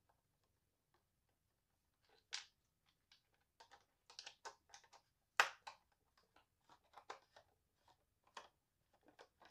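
Faint, irregular clicks and light taps of a small hand hex driver backing screws out of a Onewheel Pint's plastic flight fin. The loudest is a sharp click a little over five seconds in.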